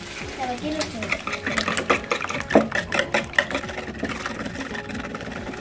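A fork beating eggs in a plastic bowl: a fast, uneven run of clicks, loudest through the middle, with a voice heard briefly near the start.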